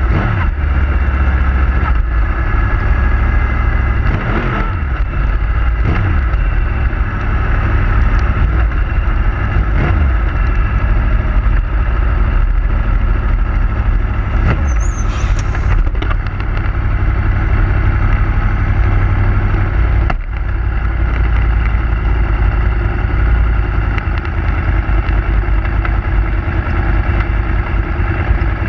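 Yamaha YZF R1 sportbike's inline-four engine running at low speed, heard close up from a tail-mounted camera with heavy wind rumble on the microphone. Its pitch swells a few times, and there is a brief high-pitched squeak about halfway through.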